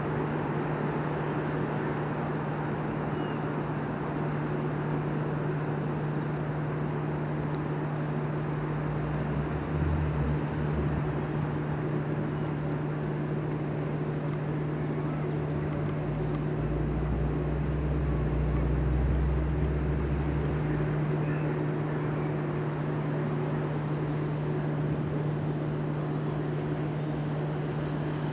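Railway station ambience: a steady low hum over a constant background noise, with a deeper rumble for a few seconds about two thirds of the way through.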